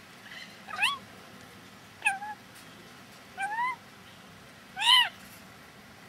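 A purple-naped lory gives four short pitched calls about a second and a half apart, each a quick rising or arched note. The last call is the loudest.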